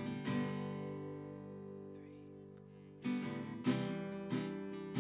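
Acoustic guitar strummed: a chord rings out and slowly fades, then steady strumming resumes about three seconds in.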